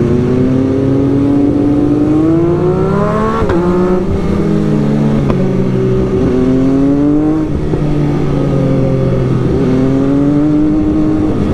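Sport motorcycle engine heard from the rider's seat, pulling up through the revs and dropping in pitch sharply several times as it upshifts, with wind rushing over the rider.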